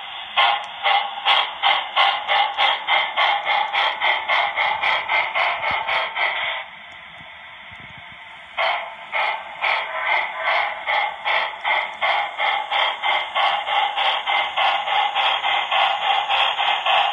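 Steam chuffing from the sound decoder speaker of an HO-scale Broadway Limited PRR T1 duplex locomotive model, an even beat of about four chuffs a second as it runs. The chuffing drops out for about two seconds partway through, then resumes.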